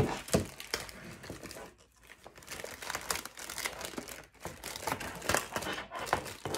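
Packaging being unwrapped by hand: irregular crinkling and rustling with a few sharper snaps and tears.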